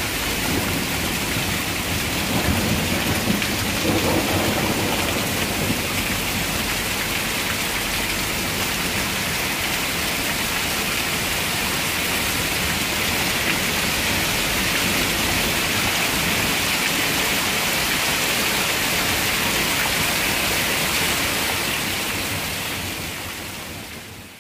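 Heavy rain falling steadily in a thunderstorm, with a low rumble of thunder a few seconds in. The sound fades out near the end.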